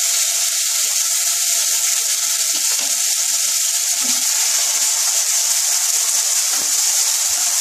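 Chopped tomatoes sizzling steadily in hot mustard oil in a kadai, with a wooden spatula stirring them through the second half and giving a few light knocks against the pan.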